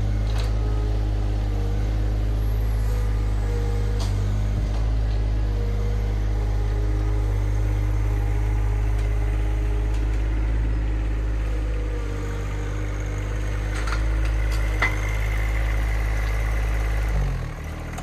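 John Deere 2025R compact tractor's three-cylinder diesel engine running steadily as the tractor drives about with its loader, with a few light clanks; the sound drops away near the end.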